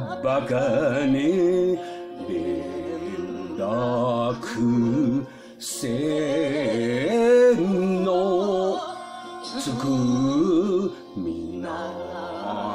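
Enka ballad: a woman sings slow phrases with heavy, wavering vibrato over instrumental backing, with short breaths between lines.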